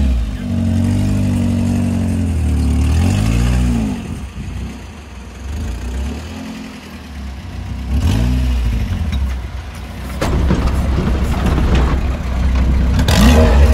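Engine of a lifted off-road 4x4 revving up and dropping back in repeated surges as it crawls over dirt mounds and rocks. There is a sharp knock about ten seconds in, and the engine and rough noise are louder near the end.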